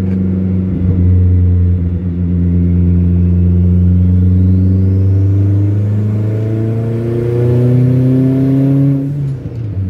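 Honda Prelude's turbocharged H22 VTEC four-cylinder engine heard from inside the cabin while driving. It holds a steady note, climbs slowly in pitch over the next few seconds, then falls away about nine seconds in.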